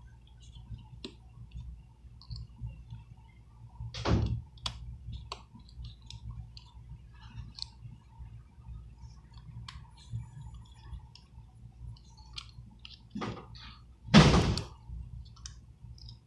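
Small clicks and taps of a precision screwdriver, tweezers and tiny screws being worked during iPhone 6 Plus reassembly, over a low steady hum. Two louder knocks stand out, one about four seconds in and a stronger one near the end.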